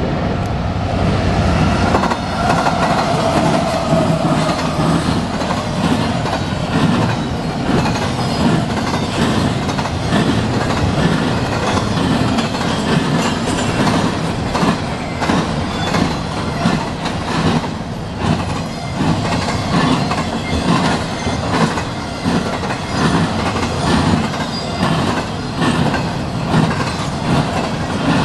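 Double-stack intermodal freight train passing close by: the CSX diesel locomotives' engines in the first couple of seconds, then the steady running noise of the container well cars with repeated clicking of wheels over rail joints.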